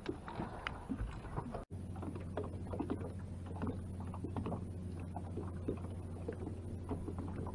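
Small clicks and knocks of gear being handled on a fishing boat, over a steady low hum that comes in after a brief dropout about two seconds in.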